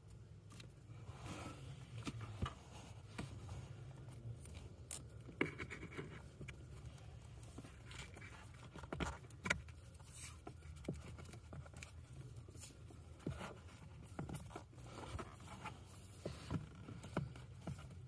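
Vinyl electrical tape being pulled off the roll and wound around a wiring harness: short, irregular peeling rasps and clicks of tape and wire handling, over a low steady hum.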